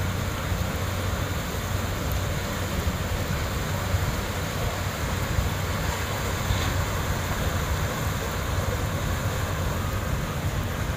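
Vehicles driving through a flooded street: a steady rush of water over a low, constant engine hum.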